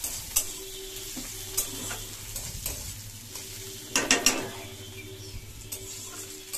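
Onions and fish pieces sizzling in oil in a steel kadai, with a metal spatula scraping and knocking against the pan as they are stirred. A cluster of louder scrapes comes about four seconds in.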